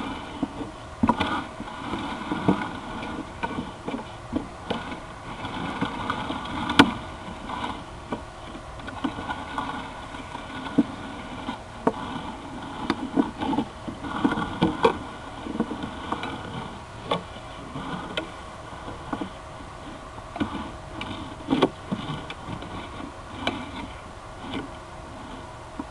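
Sewer inspection camera and its push cable being fed down a drain line: irregular knocks and scrapes as it works along the pipe, over a steady hum.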